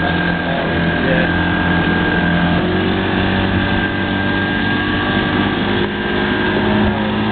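Johnson 105 outboard motor running at speed under tow load, with the rush of the boat's wake. Its pitch rises a little about halfway through.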